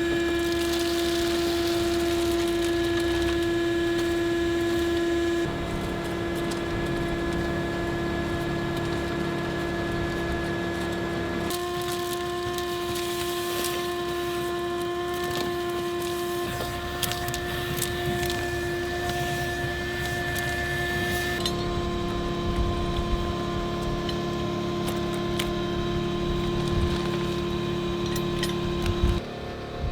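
Background music of sustained chords that change every several seconds, with scattered clicks and clanks over it.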